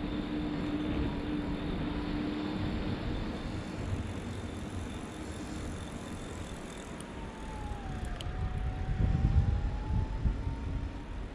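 Outdoor ambience: an uneven low rumble, with a steady hum during the first few seconds and a faint whine that dips in pitch and rises again about eight seconds in.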